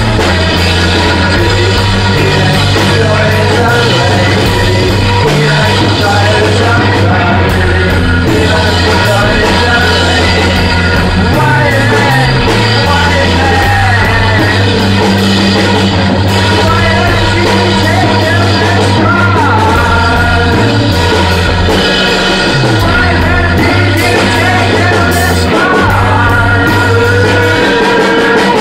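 Band improvising loud rock music in a live rehearsal room: drums, held low notes that shift every second or two, and singing whose vocal is played through a rotating Leslie speaker cabinet. The in-room vocals partly drown out the drums.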